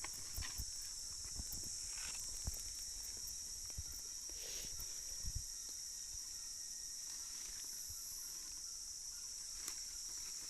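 Steady, high-pitched insect chorus of tropical forest, a continuous shrill drone. Scattered soft knocks and rustles of handling close by.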